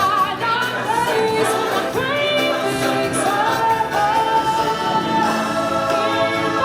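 Music with singing: voices hold long notes that step from pitch to pitch over an accompaniment.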